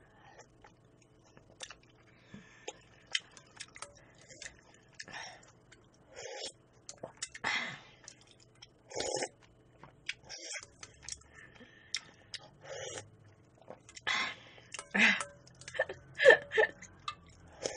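Mukbang eating sounds: a metal spoon clicking and scraping against a stainless steel bowl, with chewing and a few slurps of cold raw-fish soup (mulhoe). The clicks come at irregular moments, with louder slurps about seven, nine and fourteen to fifteen seconds in.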